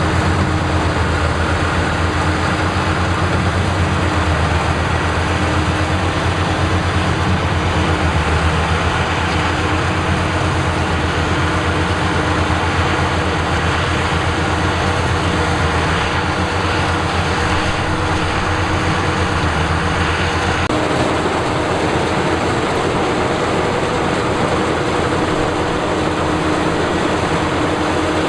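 Combine harvester running loudly and steadily, its engine and threshing machinery together; the sound changes abruptly about two-thirds of the way through, the low hum falling away.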